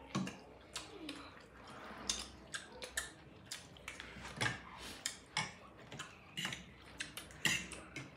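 Forks and spoons clicking and scraping against ceramic plates and bowls during a meal, with eating noises, as irregular light taps one or two a second.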